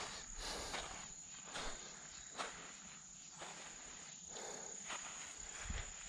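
Irregular footsteps on a muddy, pebbly creek bank and through weeds, with a steady high-pitched insect trill behind them.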